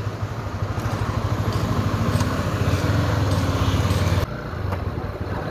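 Honda CB300F Twister's single-cylinder engine pulling away and accelerating, its pitch rising, then dropping suddenly about four seconds in.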